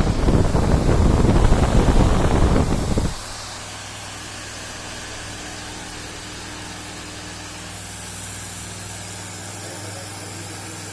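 Homemade electric fan running on 220 V mains: for about the first three seconds a loud rumbling noise covers it, which stops abruptly, and then the fan's motor goes on as a steady hum.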